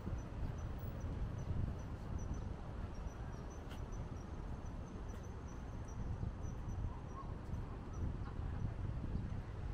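A high-pitched insect chirp repeating evenly, about two to three times a second, over a steady low rumble of traffic and outdoor air.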